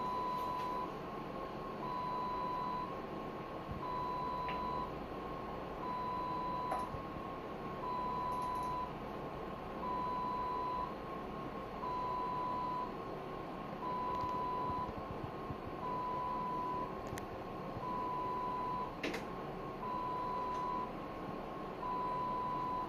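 Electronic alarm beeping: a steady tone about a second long, repeating every two seconds, with a few faint clicks.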